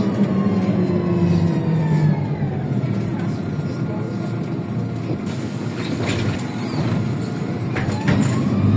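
MAZ-103 city bus heard from inside the passenger cabin while driving: the engine and drivetrain whine falls in pitch over the first few seconds, then rises again near the end. A few short rattles come through in the middle.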